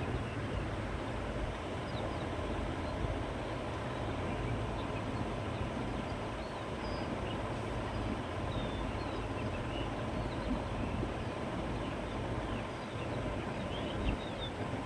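Wind blowing steadily through grass and trees, with a low rumble. Faint short bird chirps come and go, more of them near the end.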